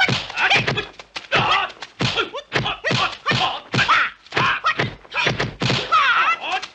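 A fast run of dubbed kung fu punch and block sound effects: sharp thwacks and thuds, about three a second, as two fighters trade blows at close range.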